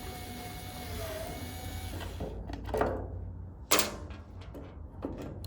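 A few sharp clicks and knocks of a screwdriver and small metal parts being handled, the loudest a crisp click about halfway through, over a faint steady hum.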